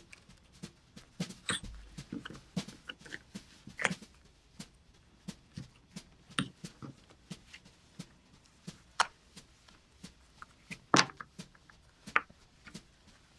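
Hobby knife cutting through the stitching threads of a leather wallet: a run of small, irregular clicks and snicks as the blade catches and parts each stitch, with a louder knock about eleven seconds in.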